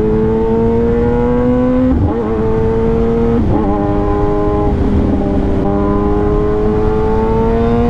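Kawasaki Ninja ZX-10R's inline-four engine running at cruising speed, its pitch slowly climbing, with brief wavers about two and three and a half seconds in and a gentle rise again near the end. Wind rushes over the microphone beneath it.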